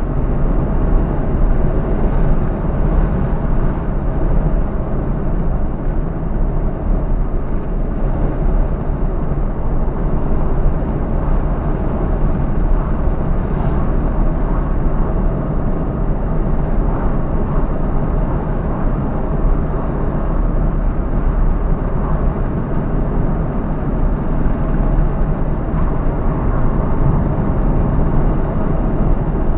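A car driving: steady road and engine noise with a strong deep rumble.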